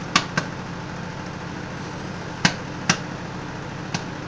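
Popcorn kernels popping in a bag inside a running microwave oven: about five sharp, spaced-out pops over the oven's steady hum.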